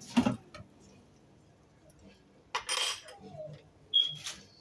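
Kitchen utensils and dishes being handled: a sharp knock at the start, a short scrape a few seconds later, then a metal clink near the end that rings briefly.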